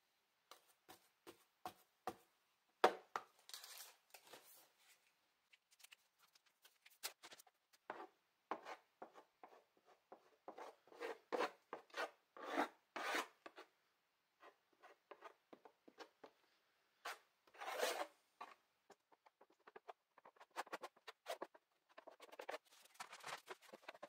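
Thick acrylic paint being spread and scraped across a wooden panel by hand with a painting tool: an irregular run of short, faint scraping rubs with brief pauses between strokes.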